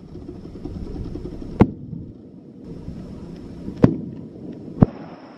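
Signal fireworks exploding over a river: three sharp bangs, the first about a second and a half in, then two more about two seconds and one second apart, over a low steady background rumble. The bangs are the signal that the ukai cormorant fishing is starting.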